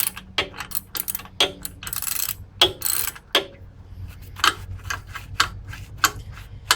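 Hand ratchet wrench clicking in irregular runs as it is swung back and forth, loosening a hydraulic hose fitting; the clicks come thick for the first few seconds, then more sparsely.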